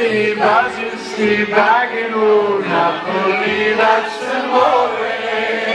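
Live band music: a singer's voice carrying a melody over a steady held instrumental backing.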